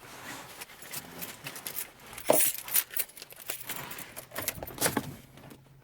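Keys jangling and clinking in a hand as a run of short, irregular clicks, the loudest about two seconds in.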